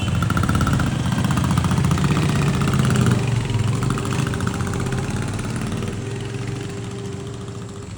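Royal Enfield Classic 350 single-cylinder engine running with an even, rapid beat, brought in for running badly. The sound fades gradually over the last few seconds.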